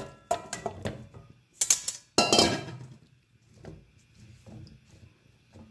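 Whole carrots knocking and clattering against a metal kadhai as they are dropped in and shifted about, loudest about two seconds in, then a few softer knocks as they settle.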